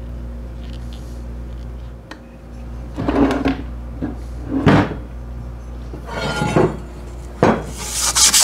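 Metal parts of an old electric motor handled on a workbench during disassembly: a few separate clunks and scrapes over a steady low hum. Rapid, rhythmic scrubbing begins near the end.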